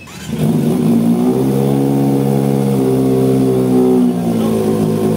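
Kawasaki ZX-25R's 249 cc inline-four running loud through an SC Project long canister on a 60 mm stainless ZX-10R elbow, with the silencer (dB killer) removed. The engine comes in about a third of a second in, its note rising over the first second, then holds steady and drops a little about four seconds in.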